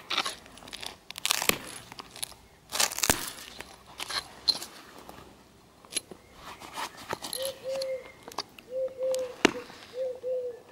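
Flint being knapped into a Clovis point: irregular scratching and crunching strokes with sharp clicks as small flakes come off the stone. From about seven seconds in, a dove coos repeatedly.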